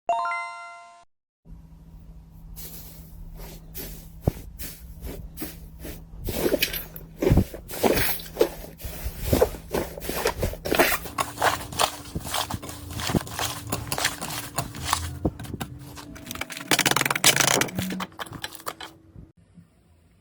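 A brief chime, then slime being squeezed and poked by hand: a long run of irregular clicks and pops that grows denser about six seconds in and stops suddenly near the end.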